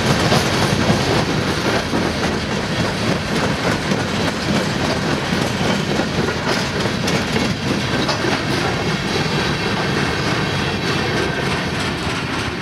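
Freight train of covered hopper cars rolling steadily past, with the cars' steel wheels clacking over the rail joints.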